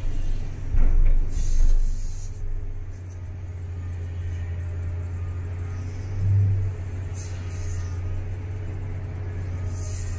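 Komatsu PC3000 mining excavator heard from inside its cab: a steady low engine drone, with heavier low surges in the first two seconds and again about six seconds in while the machine is being worked.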